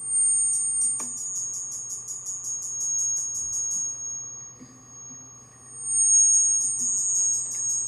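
High-pitched electronic tones pulsing rapidly, about seven pulses a second, in two spells with a steady, quieter hum beneath.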